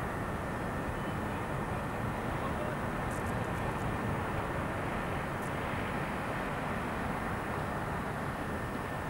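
Steady outdoor rushing roar with no distinct events: wind on the camcorder microphone over the distant hum of port traffic.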